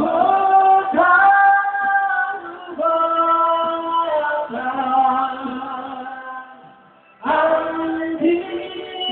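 A man singing a Batak song into a handheld microphone, holding long notes. His voice fades about six seconds in and comes back in loudly about a second later.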